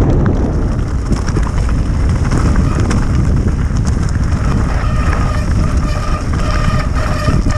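Wind buffeting the microphone in a steady rush during a fast downhill run. About five seconds in, a faint high steady whine joins it.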